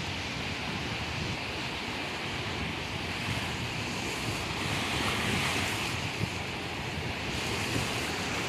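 Small sea waves breaking and washing on a beach, a steady surf noise that swells slightly about halfway through, with wind buffeting the microphone.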